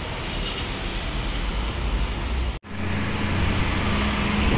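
Road traffic at a busy junction: trucks and cars passing with their engines running. The sound cuts out abruptly for a split second about halfway through, then resumes with a steady low engine drone under the traffic.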